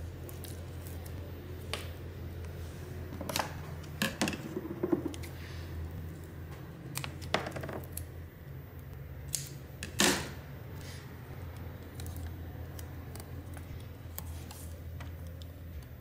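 Steady low hum with scattered sharp clicks and taps of small objects being handled on a workbench, the loudest about ten seconds in.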